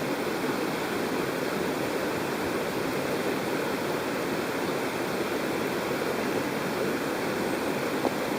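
Mountain stream water rushing steadily, with a faint click near the end.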